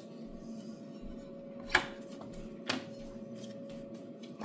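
Steel-tube frame being set down on a perforated steel welding table: two sharp metal knocks about a second apart, the first louder, over a steady faint hum.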